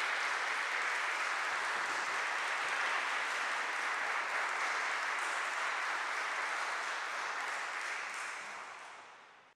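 Concert audience applauding steadily, fading out over the last second or two.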